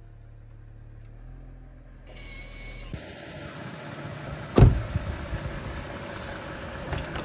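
A low steady hum, then a car's engine and tyres on gravel come in, with one loud sharp crack about halfway through and low rumbling after it.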